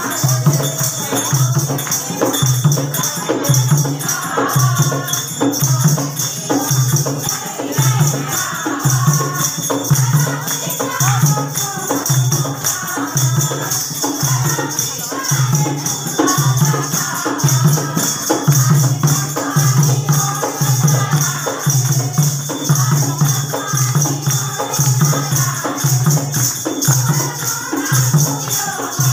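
A group of women singing a devotional folk bhajan to a steady dholak beat, with hand clapping and constant jingling percussion.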